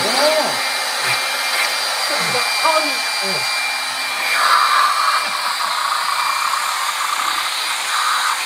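Handheld electric blower running steadily: a continuous motor whine and rush of air, swelling briefly about four and a half seconds in as the nozzle is turned on the face. A few short falling voice sounds come over it in the first few seconds.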